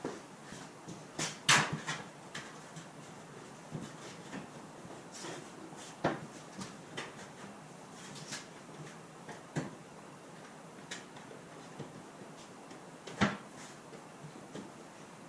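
Scattered knocks and clunks of handling work in a workshop, a few seconds apart and irregular. The sharpest come about one and a half seconds in, about six seconds in, and about thirteen seconds in.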